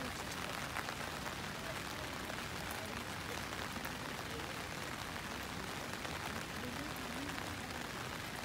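Steady outdoor background noise, an even hiss with no distinct event.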